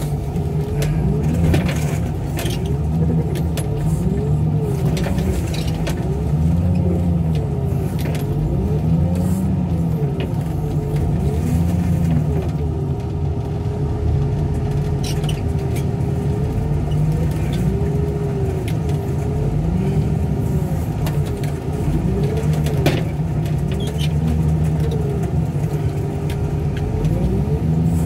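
A heavy-equipment engine running with its speed rising and falling every second or two as its load changes, with a steadier stretch near the middle. A few sharp knocks come through it, the loudest about three quarters of the way in.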